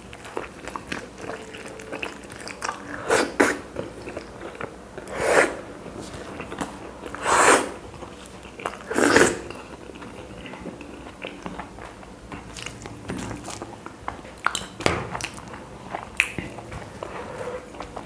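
A man chewing chapati with curry, with wet mouth and chewing clicks throughout and four louder noisy bursts spaced about two seconds apart in the first half.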